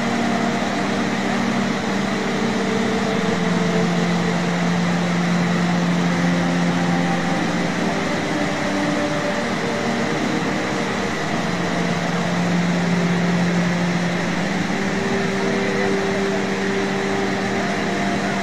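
Steady roar of a fast-flowing, flooded mountain river in white-water rapids, with held low humming tones underneath that shift pitch every few seconds.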